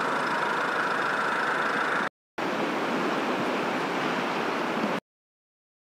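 Engine running steadily, in two stretches split by a short break about two seconds in. The second stretch comes from a portable yellow engine-driven unit running at a pumping station. The sound cuts off about a second before the end.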